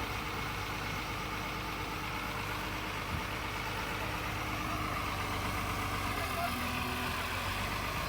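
Tata Hitachi 200 excavator's diesel engine running steadily, with one light knock about three seconds in.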